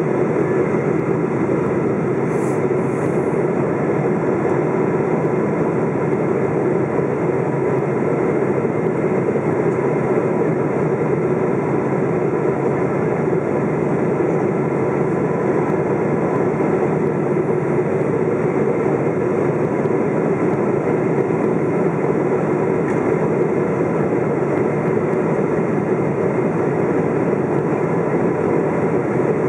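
Steady Boeing 777-200 cabin noise heard from a window seat near the engine: the GE90 turbofan and the rush of air over the fuselage during the descent on approach, with faint steady whine tones.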